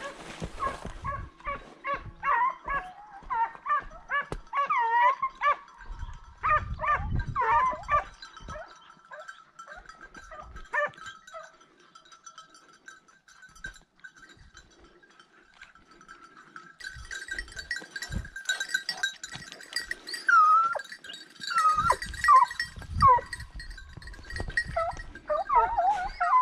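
A pack of hunting dogs baying on the trail of wild boar: many short, quick yelps. They come in dense runs, fade for a while near the middle, then pick up again. High jingling joins in during the second half.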